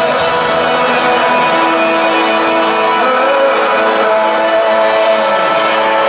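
Live band music with a strummed acoustic guitar and sustained held notes, recorded from the stands of a stadium.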